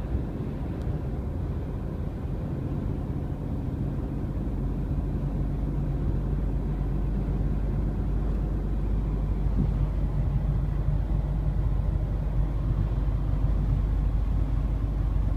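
GMC Yukon at highway speed, heard inside the cabin: a steady low drone of engine, drivetrain and road noise, rising slightly in level. It runs smooth, without the rattle, since the rear differential was replaced.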